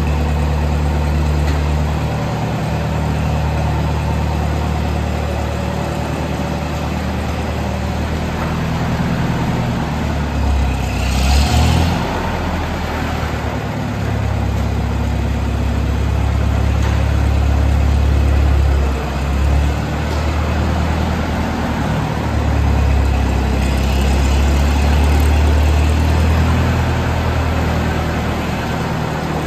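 Massey-Harris 44 tractor engine running steadily at low speed, its note dropping and rising a few times. A short hiss comes in about eleven seconds in.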